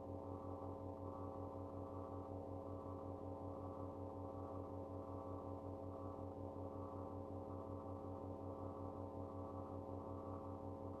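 A steady low hum with many overtones, unchanging throughout.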